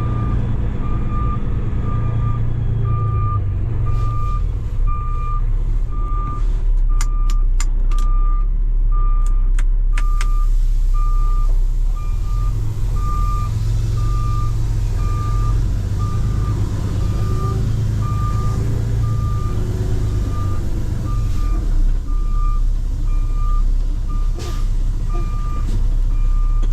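A heavy diesel vehicle's reversing alarm beeps steadily and evenly over the low, steady rumble of its engine while it backs up.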